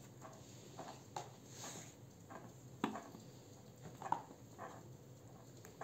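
Faint, scattered light taps and clicks of hands handling grape leaves, a plastic container and a metal pot, a few every second or so. The sharpest come just before three seconds and about four seconds in.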